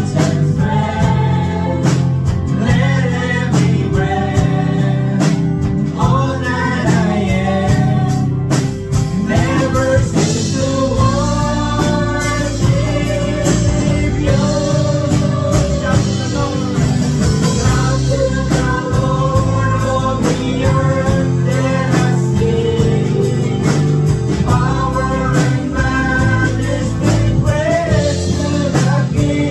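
Live worship band playing a gospel praise song: a woman sings lead into a microphone over acoustic guitar, electric guitar, keyboard and drums.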